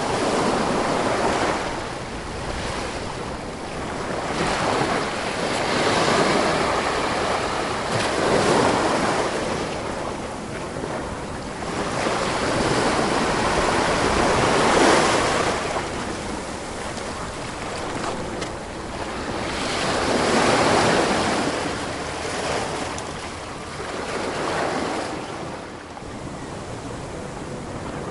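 Ocean waves washing onto a shore, the surf swelling and falling back every few seconds, with some wind on the microphone.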